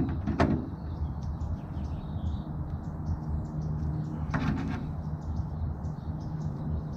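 Metal clicks as a Knipex pliers wrench is set on and squeezed against the bent sheet-steel edge of a tool chest: two sharp clicks near the start and a cluster about four seconds in. Underneath are a low steady rumble and faint bird chirps.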